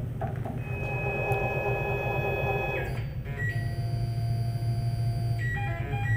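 Tormach 15L Slant-PRO CNC lathe's axis motors whining as the tool holder is jogged toward the part: a steady high whine that stops about three seconds in, comes back at a different pitch and steps quickly through several pitches near the end, over a low steady hum.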